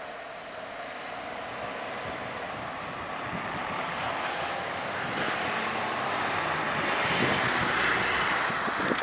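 A vehicle approaching, its noise growing steadily louder.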